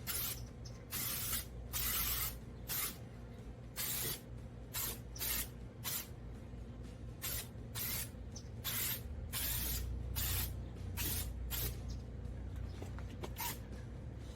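Aerosol spray can hissing in about twenty short bursts of a fraction of a second each. The can's nozzle pin keeps sticking, so the spray comes out inconsistently.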